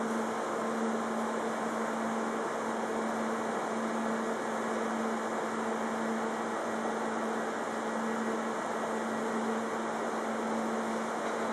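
Steady electrical hum, one constant low tone with a fainter overtone, over an even hiss; no passing-train noise stands out yet.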